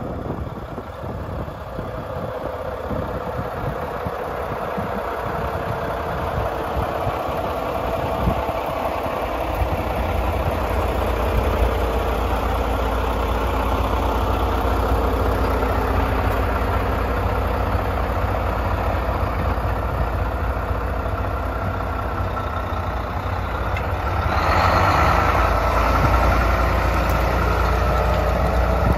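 Diesel engine of a 2015 Mack CHU613 truck idling steadily. It grows louder as it goes, with a louder stretch for a couple of seconds near the end.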